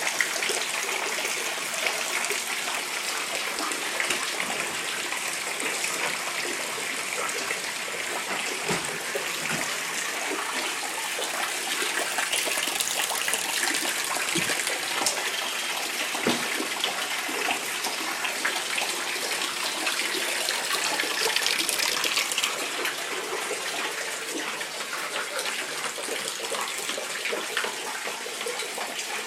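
Flood water running in a steady rush, with a few faint knocks.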